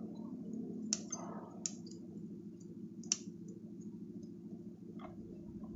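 Bonsai pruning scissors snipping twigs on an anting putri (Wrightia religiosa) tree: three sharp snips in the first three seconds and a fainter one near the end. A steady low background hum sits under them.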